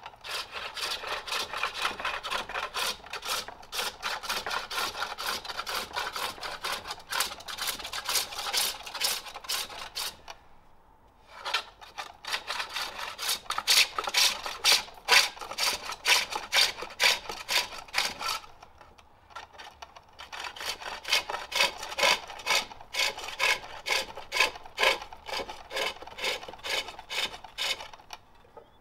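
Hook tool cutting shavings from the inside of a jacaranda bowl spinning on a pole lathe: rapid, rhythmic scraping cuts in three long runs, with two short pauses between them.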